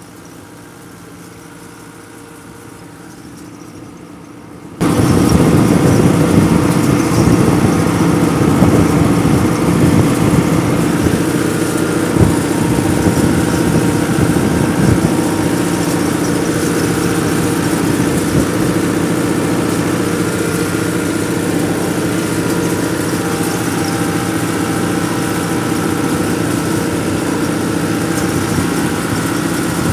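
A handmade mini MF 385 tractor's motor, quiet at first, switches on abruptly about five seconds in and then runs steadily and loudly.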